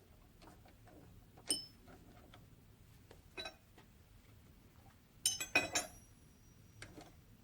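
Small metal parts and tools clinking as they are handled and set down: a single clink, another a couple of seconds later, then a quick cluster of clinks with a high metallic ring that hangs on for about a second, and a last light tap.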